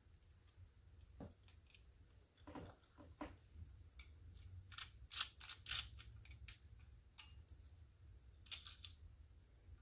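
Faint scattered clicks and light rattles of small die-cast model crane parts being handled, thickest about halfway through, over a low steady hum.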